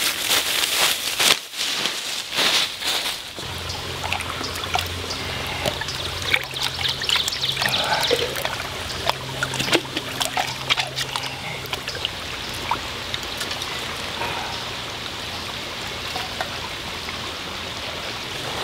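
Footsteps crunching through dry leaf litter at the start, then a small shallow stream trickling over stones while plastic cups are dipped, filled and poured out, with small splashes and water dribbling.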